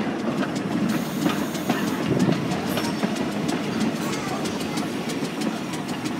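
Rail vehicle running on track: a steady rumble with many small clicks and ticks throughout.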